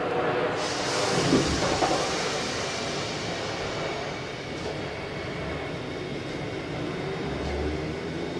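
Class 455 electric multiple unit running, heard from on board: a steady rumble with a hiss that comes in about half a second in and slowly fades.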